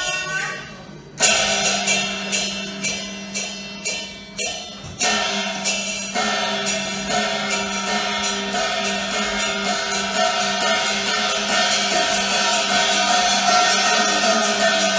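Cantonese opera instrumental accompaniment: a string of percussion strikes about twice a second, each ringing away. About five seconds in, the melodic instruments join in a held, sustained strain over rapid light percussion ticks.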